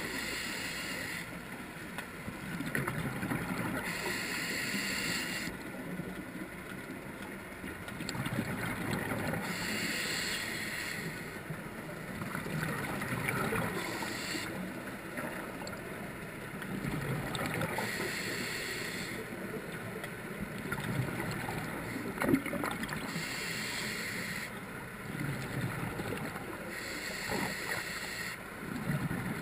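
A scuba diver breathing through a regulator underwater: a hiss repeats about every four to five seconds, with the low bubbling of exhaled air between breaths. One short knock sounds about two-thirds of the way through.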